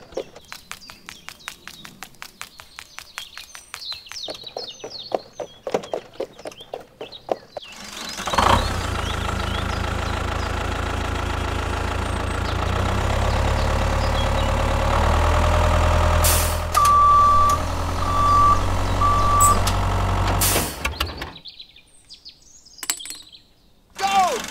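Birds chirping over a rapid run of clicks, then a tractor engine starts and runs steadily, loud and low, with three short, even beeps partway through. The engine cuts off suddenly, leaving faint chirps.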